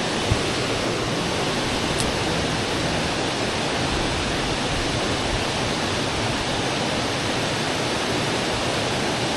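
Steady rush of flowing river water, with a small low bump near the start.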